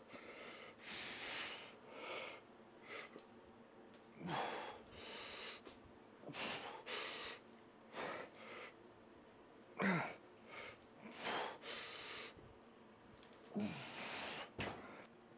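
A man breathing hard while straining through a set of kneeling cable curls: a string of forceful exhalations about one every second or so, three of them with a short falling grunt.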